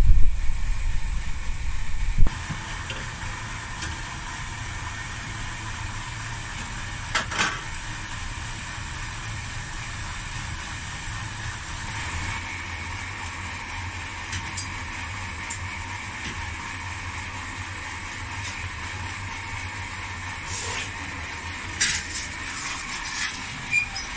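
Steady roar and hum of a glassblowing studio's gas-fired furnace and its blower, with a few light clicks of tools. A louder low rumble at the start ends with a knock about two seconds in.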